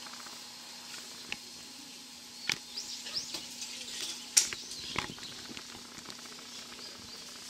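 Choshi Electric Railway train moving slowly, heard from inside the car: a steady low hum with light hiss, a few sharp clicks and knocks, the loudest a bit past the middle, and a short cluster of high squeaks around the middle.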